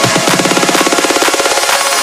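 Electronic dance music in a build-up: a fast, evenly repeating drum roll that quickens, while the bass drops out partway through.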